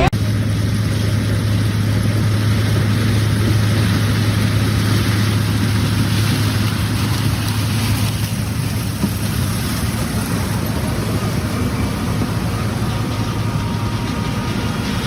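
Engine of harvest machinery running steadily: an even low drone under a noisy mechanical rush.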